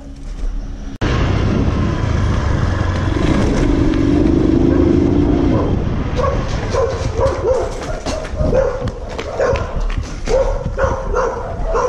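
A dog barking repeatedly from about halfway through, in short sharp barks, over a steady rumble of background noise.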